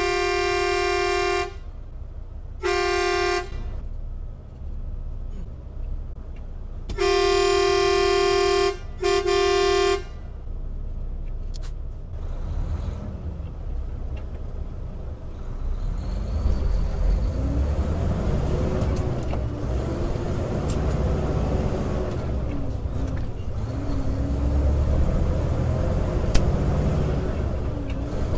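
A vehicle horn honking one steady note in four blasts: a long blast that stops after a second and a half, a short one about three seconds in, then a long one and a short one between about seven and ten seconds in. After that, the engine and road noise of a truck driving on, heard from inside the cab.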